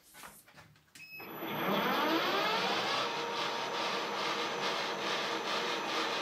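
Metal lathe switched on about a second in, its spindle running up to speed with a rising whine, then running steadily.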